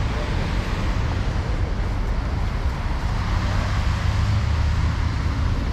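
Steady city traffic noise: a constant low rumble of cars running on a road.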